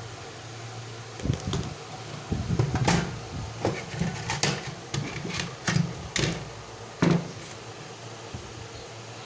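Steady low hum of a running fan, with a run of irregular clicks and knocks from about one to seven seconds in, like parts and tools being handled on a workbench.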